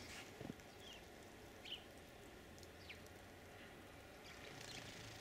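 Near silence: faint quiet outdoor ambience with a few short, high bird chirps spread through it, a couple of them near the end.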